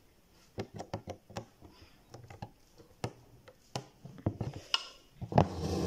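Hand embroidery in a hoop: the needle pricking through the stretched cotton and the embroidery floss being drawn through it. This is heard as scattered soft clicks and short rasps, with a louder short sound near the end.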